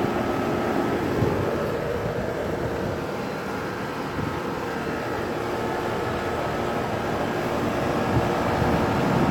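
Rheem Classic central air conditioner condensing unit running with a steady, even hum.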